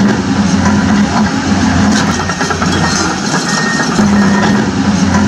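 A heavy engine idling steadily, a low rumbling hum.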